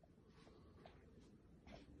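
Near silence: faint room tone with a couple of brief, soft rustles, one about half a second in and one near the end.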